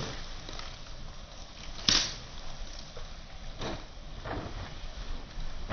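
Firewood burning in a traditional Korean agungi firebox, crackling steadily, with a sharp pop about two seconds in and a few smaller pops later.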